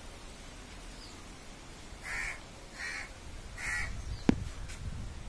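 Three short harsh calls, evenly spaced a little under a second apart, then a single sharp knock near the end.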